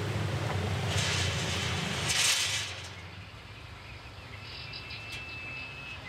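Scraping and rattling as a chain-link enclosure gate is unlatched and opened, in two brief noisy bursts over a low rumble that fades after about three seconds. Then quieter outdoor ambience with a thin, steady, high insect tone near the end.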